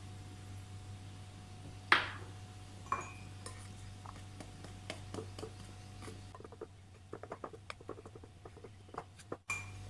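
Glass bowl knocking sharply against the rim of a glass mixing bowl about two seconds in, and a lighter knock a second later. Then a utensil stirring flour in the glass bowl, with a quick run of light clicks and scrapes against the glass near the end. A low steady hum runs underneath.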